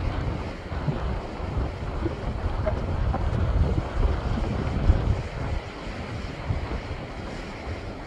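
Sea surf breaking and washing over shoreline rocks, with wind buffeting the microphone in a low, uneven rumble. The rumble is strongest around five seconds in and eases a little after.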